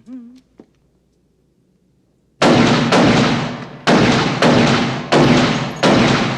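A gun firing six shots in steady succession, about half a second apart, starting about two and a half seconds in. Each shot rings out in a long echo that runs into the next.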